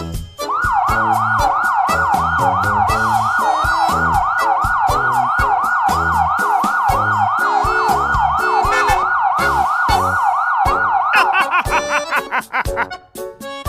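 Fast wailing emergency-vehicle siren (yelp), its pitch sweeping up and down about three times a second. It starts about half a second in and stops about two seconds before the end, over background music with a steady beat.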